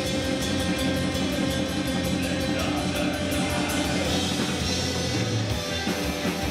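A rock band playing live: electric guitar and drums with a steady beat, the deepest bass thinning out about five and a half seconds in.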